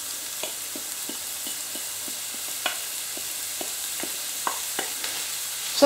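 Diced onions and chopped bacon frying in olive oil in a frying pan: a steady sizzle with a run of small ticks about three times a second.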